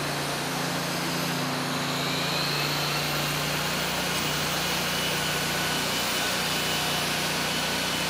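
Machinery running with a steady low hum under an even mechanical noise, unchanging throughout.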